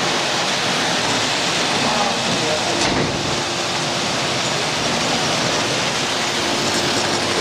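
Hornby Dublo model trains running on the tinplate three-rail layout, making a steady, even running noise with faint voices under it.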